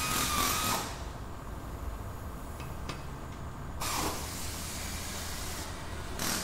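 Hissing, once at the start and again just before four seconds in, with a falling tone in the second, over a low steady hum and a couple of faint clicks.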